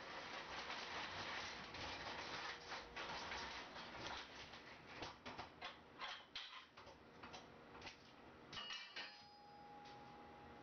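All-steel casters of a mobile sheet metal brake rolling across a concrete floor, a faint gritty rolling noise, giving way about halfway through to a run of light clicks and knocks as the machine comes to rest.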